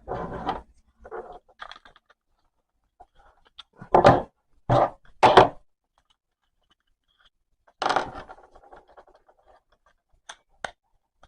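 Short scrapes and knocks from tools and parts being handled on a workbench. About six brief bursts, the three loudest close together near the middle; no steady tool motor is running.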